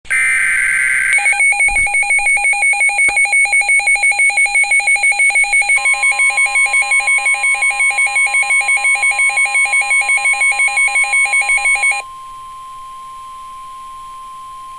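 Emergency Alert System tones: the tail of a warbling SAME data burst, then a rapid electronic alert beep pulsing about four to five times a second. About six seconds in, the steady 1050 Hz weather-radio attention tone joins, and it carries on alone after the beeping stops a few seconds before the end.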